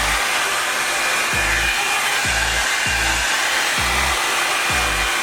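Revlon Salon One-Step Hair Dryer & Volumizer blowing steadily on its low setting, a constant rushing of air and motor. Background music with a deep, steady beat of about one thump a second plays under it.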